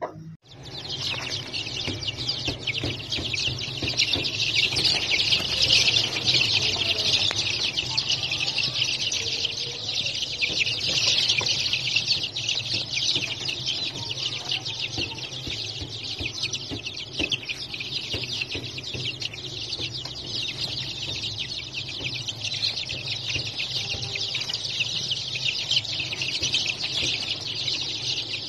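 A brood of Golden Sebright chicks peeping nonstop, many high-pitched calls overlapping into a dense chorus.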